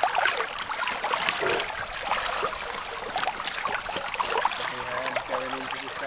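Coffee poured from a camp cooking pot into travel mugs: an uneven trickle and splash of liquid.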